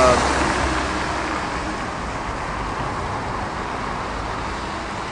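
Steady wash of road traffic noise that eases slightly over a few seconds.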